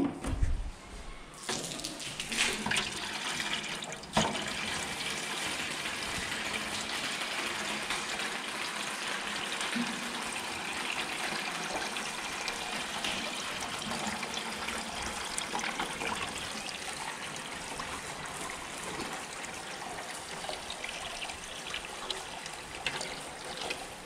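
Water from a garden hose pouring and splashing into the bottom of a tin-plate ghee can, a steady rush that starts suddenly about a second and a half in. A single sharp knock sounds a few seconds in.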